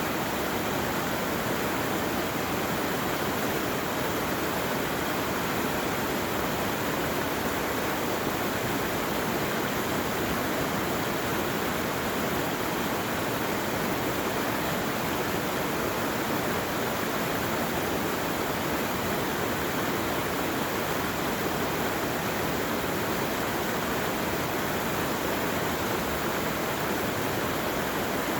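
Running water rushing steadily, an even, unbroken rush.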